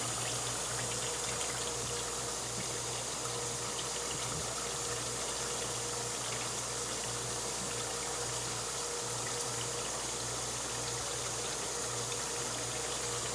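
80/20 ground beef sizzling in a hot pot as it browns: a steady hiss with faint scattered crackles, over a faint steady hum.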